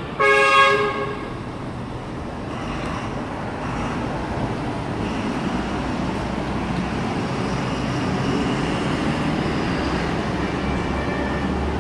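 Street traffic: a vehicle horn honks once, for under a second, just after the start. Then comes a steady hum of engines and tyres, with a low rumble that slowly grows louder.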